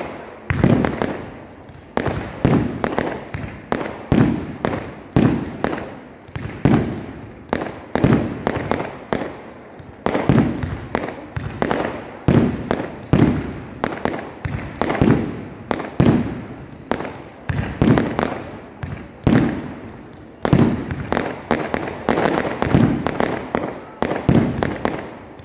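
Fireworks display: a steady run of shell bursts, sharp bangs coming about one to two a second, some in quick clusters, each dying away briefly before the next.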